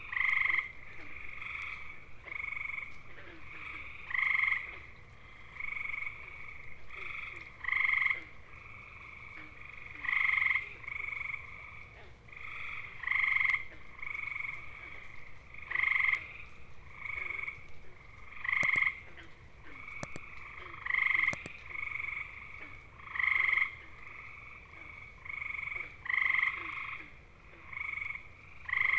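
Gray tree frogs (Hyla versicolor) giving their mating trills. A loud male trills for about half a second every two to three seconds, and fainter trills from other frogs fall between his calls.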